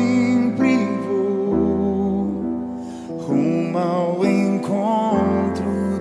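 Background music: a melody over sustained chords, with a bass that changes note about every two seconds.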